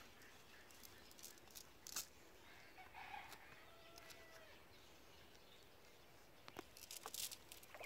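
Near silence: faint outdoor ambience with a few soft clicks and taps, and a faint distant bird call about three seconds in.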